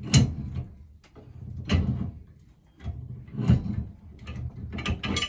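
Pipe wrench unscrewing a threaded steam pipe. A scraping metal clank comes four times, about every second and a half, as the wrench is swung and reset on the pipe.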